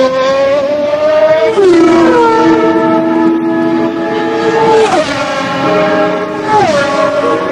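Honda V12 of a 1991 McLaren MP4/6 Formula One car at full throttle, accelerating hard. Its high engine note drops sharply at three upshifts: about one and a half seconds in, about five seconds in, and near the end.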